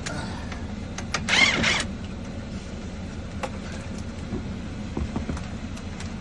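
A vehicle engine running with a steady low hum, a short loud whir about a second and a half in, and scattered light clicks and knocks.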